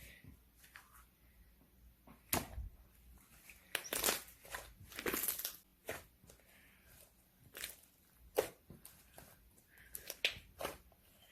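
Slime being handled and squeezed, giving irregular sharp pops and crackles. There is a longer crackling stretch about four to six seconds in.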